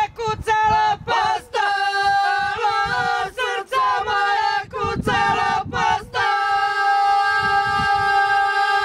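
Ojkavica, traditional Croatian unaccompanied group singing by a few folk singers. They sing short broken phrases with quick wavering ornaments, then, about six seconds in, hold one long chord.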